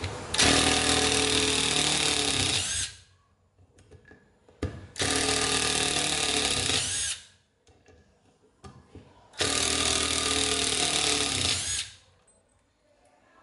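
National cordless impact driver hammering long screws into hard wood three times. Each run lasts about two and a half seconds and stops when the screw is driven home.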